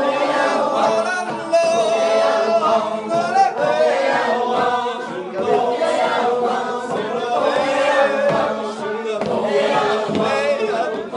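A group of voices singing together a cappella, holding chords in several parts.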